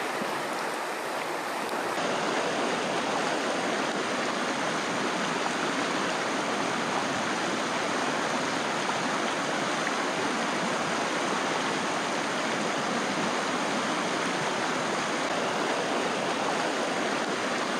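Shallow river water rushing over rocks in a riffle, a steady rush with no let-up, slightly louder from about two seconds in.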